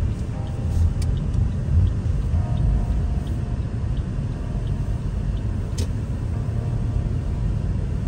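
Low, steady rumble of a car heard from inside the cabin while driving on a snow-covered road, with faint ticks over it.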